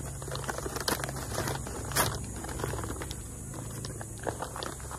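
Brown kraft-paper mailer bag crinkling and crackling as it is handled and opened, a run of uneven sharp crackles with the loudest about two seconds in.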